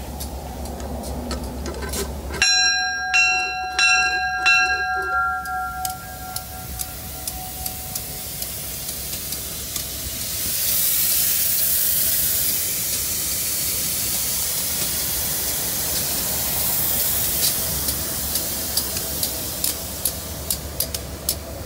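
Locomotive bell struck about four times a couple of seconds in, each stroke ringing out, over the low rumble of a passing EMD SD40-2 diesel-electric freight locomotive. About halfway a loud steady hiss comes in, and near the end there is a run of evenly spaced clicks.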